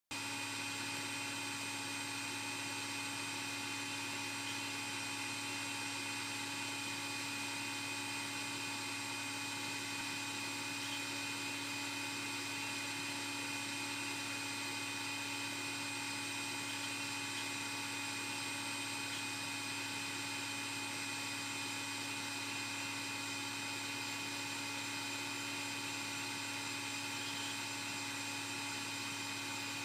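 Steady electrical hum with a high whine of several constant tones, unchanging throughout, from powered-up cockpit equipment while the engine is stopped.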